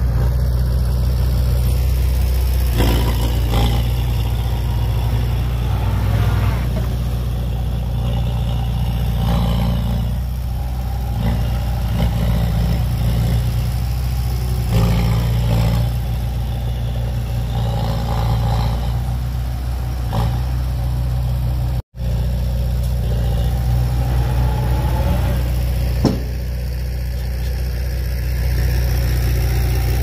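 Diesel engine of heavy earthmoving machinery running steadily, with occasional metallic clanks. The sound cuts out abruptly for an instant about two-thirds of the way through.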